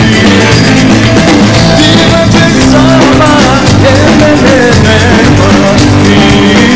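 Rock band playing live: electric guitar, bass guitar and drum kit over a steady beat.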